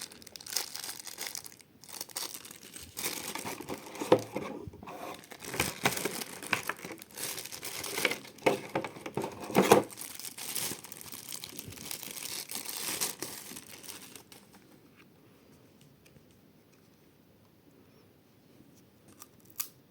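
Packaging wrapping crinkling and tearing as it is handled and opened, in an irregular run of crackles and rustles that stops about 14 seconds in.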